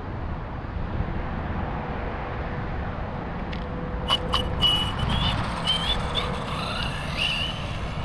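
Brushless electric motor of an RC car on a 3S LiPo whining high as it speeds away, the pitch wavering and rising over the second half, with a few sharp clicks. A steady low rumble runs underneath.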